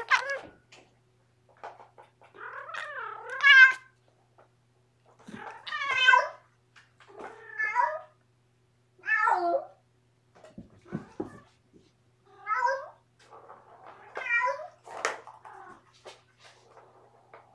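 A domestic cat meowing again and again, long calls that bend up and down in pitch every second or two. A few low thuds come about two-thirds of the way in.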